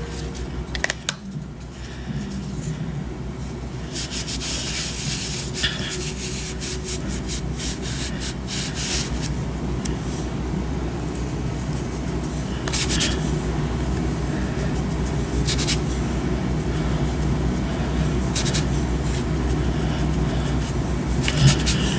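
Steady low rumble with rubbing noises and scattered clicks on top.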